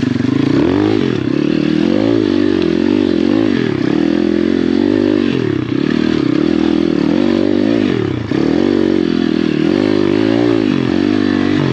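Apollo pit bike with a swapped-in 150cc engine, climbing a steep rocky trail under load. The revs rise and fall over and over, about once every second or so, with a brief drop about eight seconds in.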